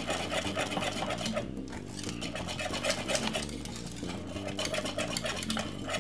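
Wire whisk beating thick cornmeal porridge in an aluminium saucepan: a fast, continuous run of clicks and scrapes as the wires strike the pan.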